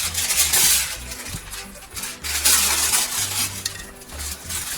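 Aluminium foil being crinkled and folded into a double layer, rustling in several bursts with short pauses between.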